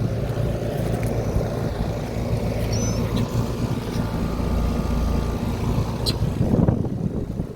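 Trane XR14 central air conditioner outdoor condensing units running in cool mode: a steady rush of air from the condenser fan over a low compressor hum.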